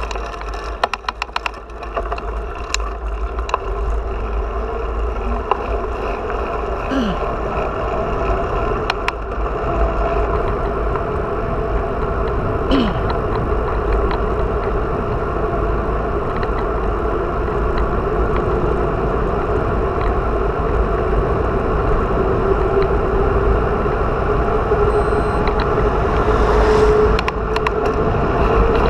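Wind rushing over a bicycle-mounted camera's microphone together with tyre noise on asphalt during a fast road-bike descent, growing louder as speed builds. A few sharp clicks in the first couple of seconds.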